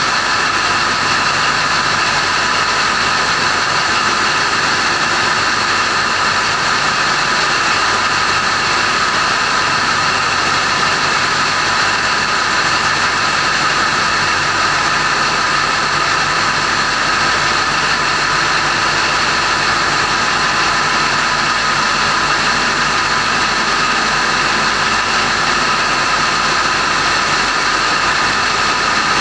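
Large marine diesel engine running steadily in a ship's engine room: a loud, unchanging drone with steady high tones over it.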